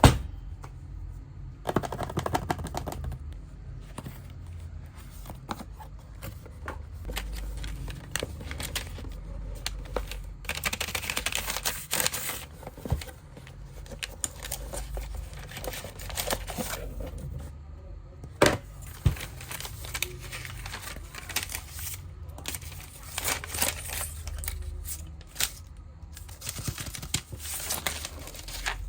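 Hands handling and working on a Bluetooth speaker: scattered plastic clicks and taps, with stretches of crinkling and scraping.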